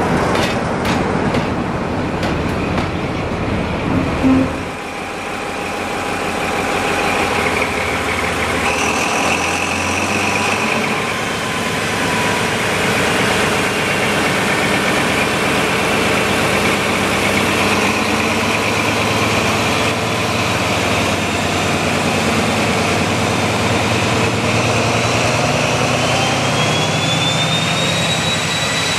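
A Class 47 diesel locomotive passing with a train of coaches. After a cut, prototype HST power car 41001 runs with a steady engine hum and whine, and near the end a rising whine as power comes on to pull away.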